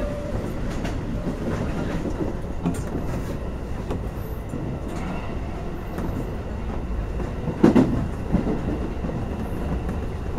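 Shin-Keisei electric commuter train running along the track, heard from inside the train: a steady rumble of wheels on rail with a few sharp clacks over rail joints, the loudest about three-quarters of the way through.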